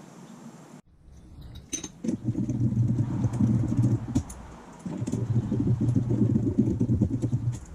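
Power tool run in two bursts of about two seconds each with a short pause between, a steady buzzing with a fast rattle, after a few light clicks.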